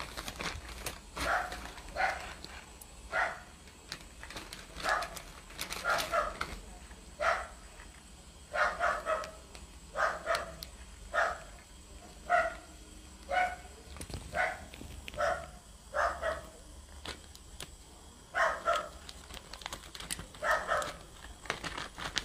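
A dog barking over and over, about one bark a second, sometimes two in quick succession.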